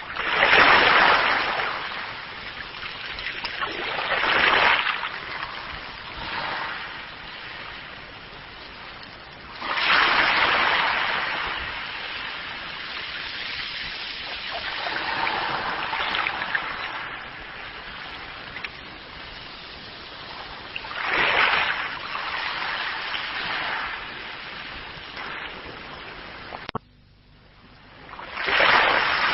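Sea waves breaking and washing in, in slow irregular surges every several seconds over a steady rush of water, with a sudden brief dip near the end.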